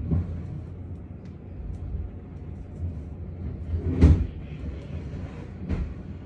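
Muffled low thumps and knocks over a low rumble: one right at the start, the loudest and sharpest about four seconds in, and another near the end.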